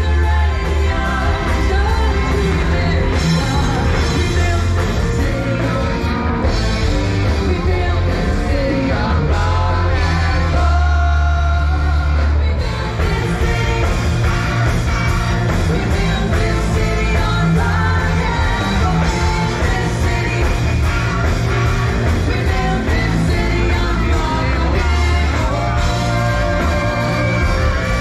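A live rock band playing loudly through a PA: a singer over guitars and a strong, heavy bass line.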